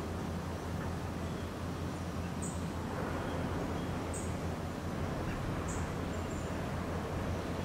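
Outdoor garden ambience: a steady low hum under a light hiss, with a few short high-pitched chirps about every one and a half seconds.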